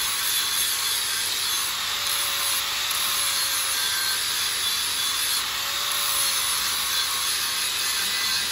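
Angle grinder grinding a bevel into the end of quarter-inch-wall steel square tubing, a steady harsh grinding hiss with a faint motor tone that rises and falls slightly as the disc bears on the steel. The bevel is cut to half the wall thickness, as weld preparation.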